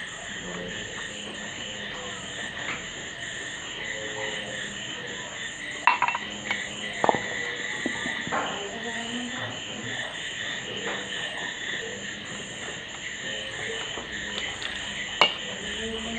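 Frogs croaking with insects, over a high trill that pulses a little under twice a second. A few sharp knocks stand out about six and seven seconds in and again near the end.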